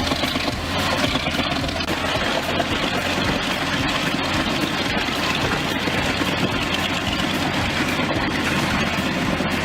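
A heavy machine's engine running steadily, with a low hum and faint ticks over it.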